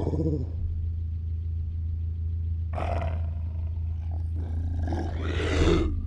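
A werewolf growling and roaring in three bursts: a short one at the start, another about three seconds in, and a longer, louder one from about four and a half seconds. Under it runs a steady low drone like a car engine.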